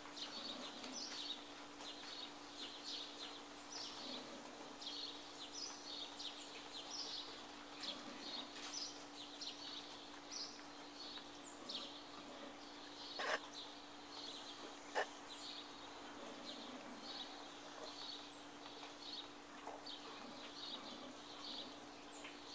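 Birds chirping continuously, with a high, arching whistle repeated every few seconds, over a steady low hum. A little past the middle come two sharp clicks about a second and a half apart.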